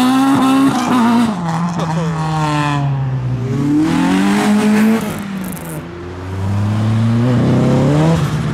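A modified car's engine revving hard in repeated swells while drifting, with tyre squeal from the spinning tyres. The revs climb at the start and drop away after about a second, climb again around four seconds in, sag about six seconds in, then build once more near the end.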